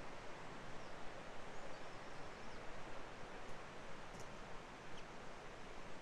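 Steady rushing outdoor ambience in open countryside, with a few faint high chirps.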